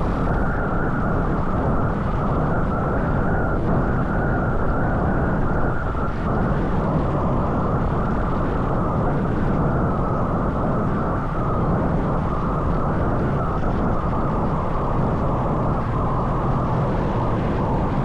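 Steady rush of wind buffeting an Insta360 X4 camera's microphone while riding a road bike, mostly a low, even rumble.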